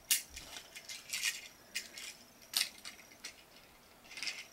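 Irregular light clicks and clatters of a plastic toy Thomas train engine and wagon being handled and set down on a plastic track.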